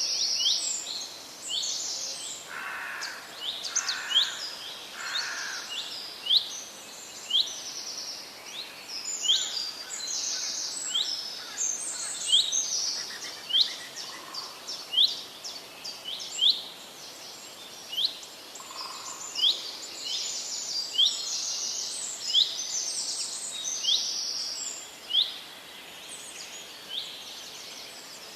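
Several small birds chirping and singing together: a sharp chirp repeating about once a second over a busy high twittering, with a few lower calls about three seconds in.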